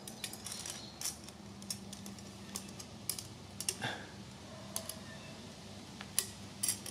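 Scattered light metallic clicks and taps of a hand-held roller tube bender being fitted onto a steel brake line and worked by hand, over a faint steady hum.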